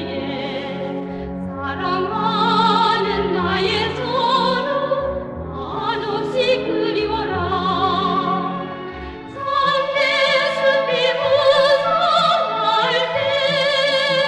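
Operatic singing with strong vibrato over an orchestral accompaniment, in long held notes, with a short lull about nine seconds in.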